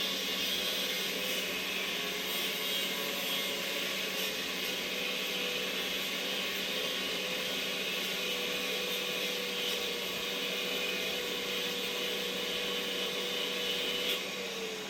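Small electric grinder running steadily, its disc grinding the steel of a chainsaw bar to enlarge the bar's mounting hole. It spins down with a falling whine near the end.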